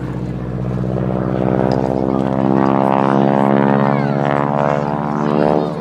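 North American Harvard AT-6's nine-cylinder Pratt & Whitney R-1340 Wasp radial engine and propeller in a display pass, a droning engine note that swells from about a second in, is loudest in the middle and drops away near the end as the aircraft passes.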